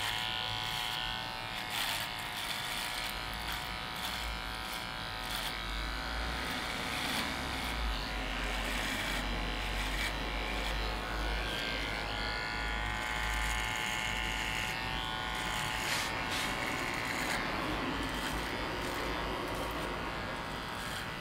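Electric nose and ear hair trimmer running with a continuous buzz, its tone shifting slightly now and then, with a few short clicks.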